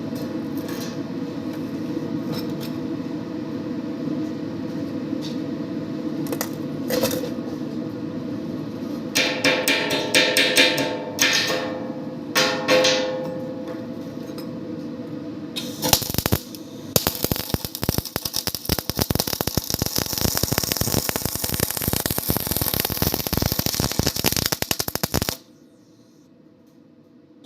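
Electric arc welding: a dense, rapid crackle and sputter from the arc, coming in spells and heaviest in the last third, then cutting off suddenly near the end.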